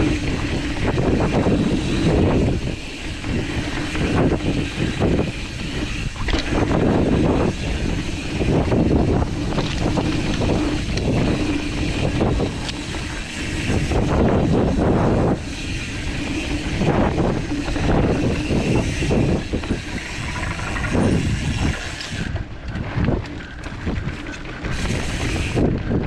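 Mountain bike rolling down dirt singletrack: wind buffeting the microphone over a rumble of tyres on dirt, with frequent knocks and rattles from the bike over bumps.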